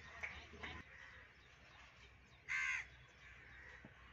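A crow gives a single short, harsh caw about two and a half seconds in, over faint open-air background.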